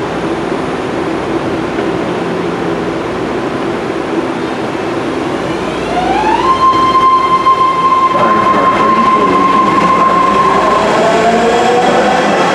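BART Rohr-built subway train standing with a steady low hum, then a whine that rises and holds one high pitch from about six seconds in, and near the end several whines climbing slowly in pitch as the train starts to pull away.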